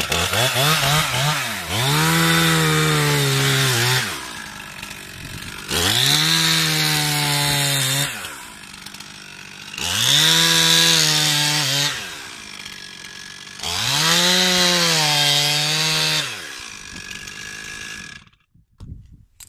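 Chainsaw cutting through lake ice. It goes to full throttle four times, each cut lasting about two seconds, and drops back to idle in between. The engine cuts off near the end.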